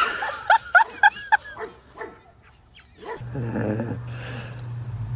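Small dog barking: about five short, high yaps in quick succession, then it stops. About three seconds in, a steady low drone begins.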